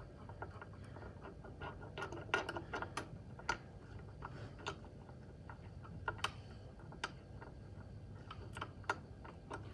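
Faint, irregular clicks and ticks of a 4 mm Allen key turning a bolt out of a heat press's top cover.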